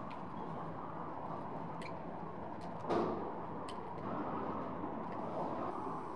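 Steady low outdoor rumble with a few sharp clicks and a louder knock about three seconds in. Near the end a handheld butane torch starts hissing again.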